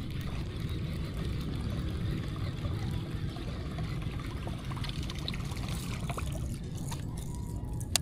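Water trickling and lapping over a steady low rumble, with a single sharp click at the very end.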